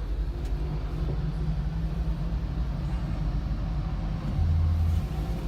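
Steady low rumble of an idling car engine, with a deeper hum swelling for under a second near the end.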